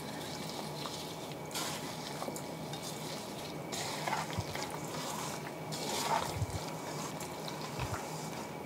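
Raw chicken wings coated in olive oil and seasoning being tossed by a gloved hand in a stainless steel bowl: soft, irregular wet sounds of the meat being turned over.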